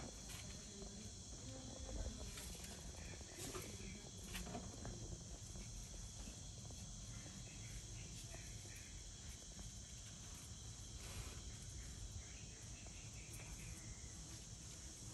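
Outdoor ambience with a steady high-pitched insect drone, faint throughout, and a few soft clicks here and there.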